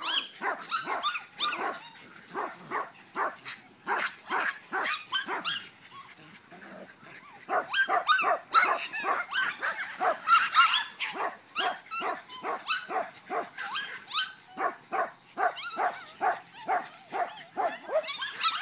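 Jack Russell terriers barking repeatedly and excitedly as they run, short sharp barks coming two to four a second and sometimes overlapping, with a brief lull about six seconds in.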